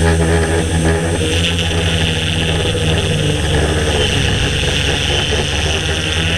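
Motors and propellers of a DJI S800 Evo hexacopter in flight, a steady drone with a high whine, picked up by the GoPro camera carried on the craft.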